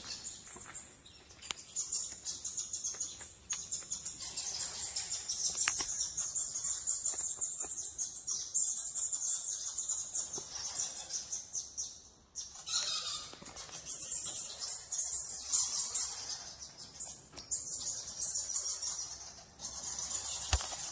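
Dense, rapid high-pitched chirping and twittering from animals in a cave, dipping briefly about twelve seconds in and loudest a couple of seconds later.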